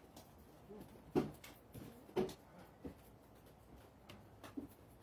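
A few short knocks and clicks at irregular intervals, the loudest about a second in and another about two seconds in.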